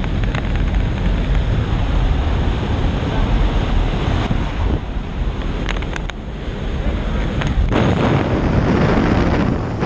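Wind rushing past the open door of a skydiving plane in flight and buffeting the camera microphone, with the aircraft's engine noise underneath. A few short knocks sound about five to six seconds in.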